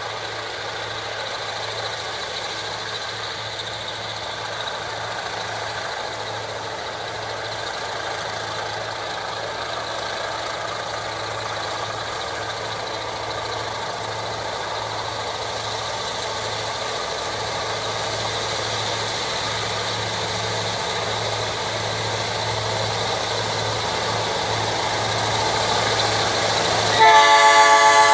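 Diesel locomotive hauling a train up a mountain grade, its engine running steadily under load and growing slowly louder as it approaches. Near the end its air horn sounds loud, a chord of several tones held on.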